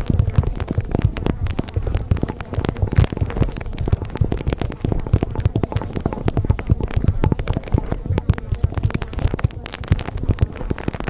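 Dense, irregular crackling and popping over a steady low rumble, without a break.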